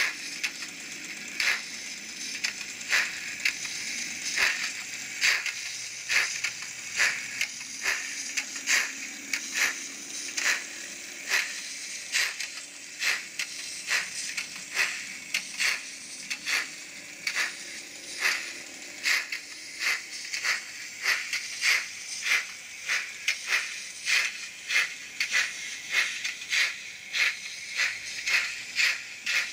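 Simulated steam-locomotive sound from the Arnold N-scale BR 18 model: a slow, even exhaust chuff of about one and a half beats a second over a steady steam hiss, as the train rolls at low speed.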